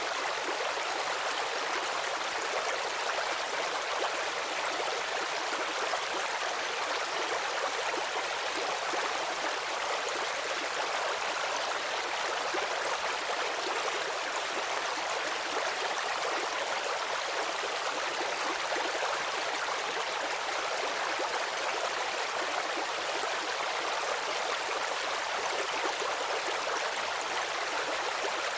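Stream water running and splashing steadily over stones, an even hiss with little low rumble.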